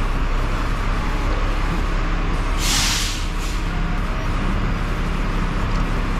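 Crane truck's engine running steadily, with a loud burst of air hiss about two and a half seconds in and a shorter, fainter one right after.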